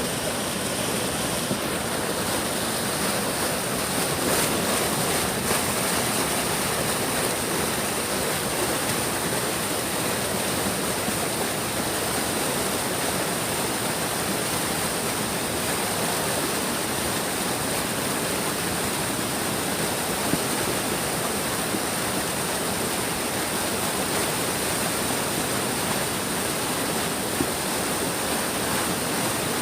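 Big stream flowing: a steady, unbroken rush of water.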